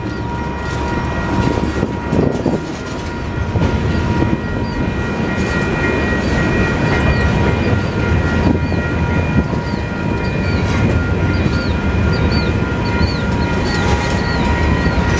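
Freight cars (covered hoppers and a tank car) rolling slowly past while being shoved in reverse, their steel wheels rumbling and knocking on the rails, with a thin steady wheel squeal over the top. The rumble grows gradually louder.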